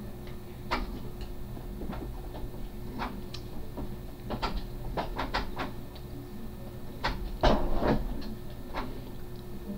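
A run of short, irregular knocks and rustles, the loudest cluster about three quarters of the way through, over a steady low hum.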